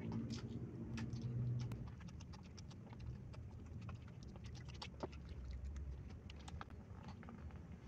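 Fingers picking at chicken and gathering yellow rice on a paper food wrapper: scattered light crackles and taps. A low hum runs under it for the first two seconds.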